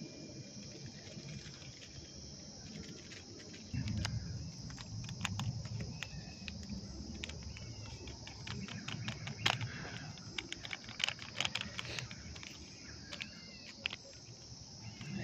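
Steady high-pitched insect chorus, typical of crickets. From about four seconds in a low rumble joins it, along with scattered sharp clicks and crackles, the loudest near the middle, and a bird chirps briefly a couple of times.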